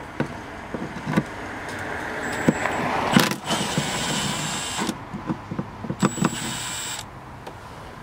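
Cordless drill/driver backing out a tailgate latch screw. The motor runs with a high whine in two short spells, the first about halfway in and the second near the end, with light clicks and knocks of handling in between.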